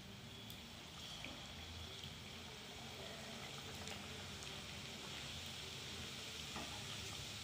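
Samosas deep-frying in hot oil in a kadai: a faint, steady sizzle with small scattered crackles, growing gradually louder as more samosas go into the oil.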